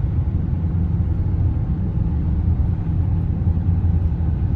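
Steady low rumble of road and engine noise inside the cabin of a moving vehicle.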